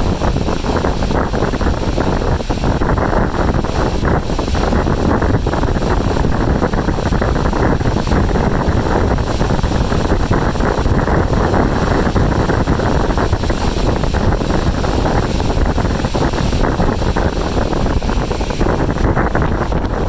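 Strong wind buffeting the microphone: a loud, continuous rushing noise that flickers rapidly in strength.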